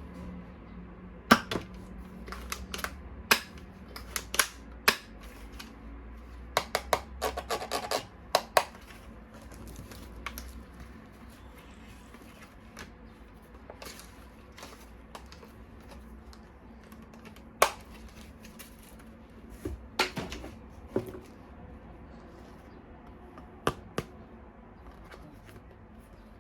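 Sharp plastic clicks and taps of toy parts being handled. There is a quick cluster of clicks about seven seconds in, then a few scattered single clicks.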